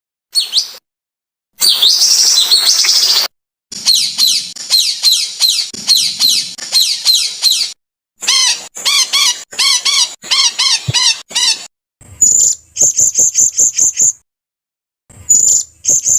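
Songbird calls spliced together as a birdsong training recording ('masteran'). Short clips of different phrases are separated by abrupt silent gaps: a dense, jumbled warble, then long runs of quickly repeated falling whistles and arched notes, then rapid high chips near the end.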